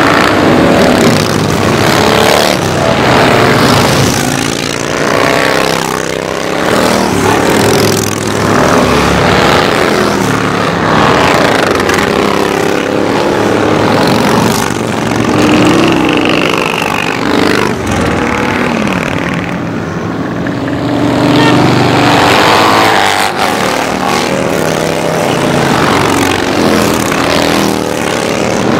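Many cruiser motorcycles riding past in a parade. Their engines are loud and continuous, swelling and dipping every few seconds as bike after bike passes close.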